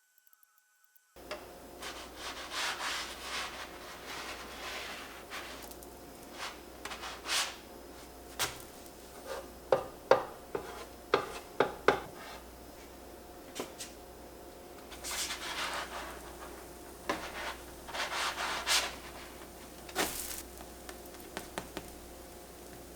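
A utensil scraping and rubbing in a dish or bowl, in irregular strokes, with sharp clicks of metal against the dish, most of them clustered about halfway through.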